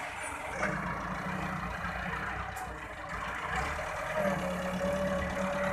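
Massey Ferguson 375 4WD tractor's diesel engine running under load as the front loader lifts and tips a bucket of straw. The engine note steps up twice, shortly after the start and about four seconds in, with a steady whine joining it just before the second step.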